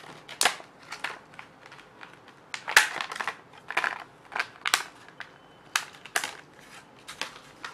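Clear plastic blister pack being pried and peeled open by hand: irregular crackling and crinkling of the stiff plastic with sharp snaps, the loudest about three seconds in.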